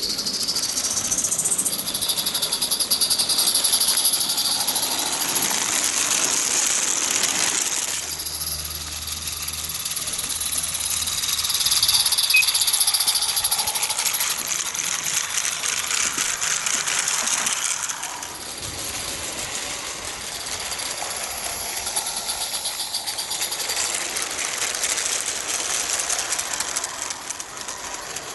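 A garden-railway train running past: the small locomotive and its wooden wagons clatter and rattle along the track, growing louder as it draws near and easing off as it moves away.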